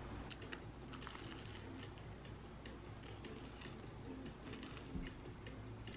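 Faint, soft background music with a light ticking beat and a few scattered clicks.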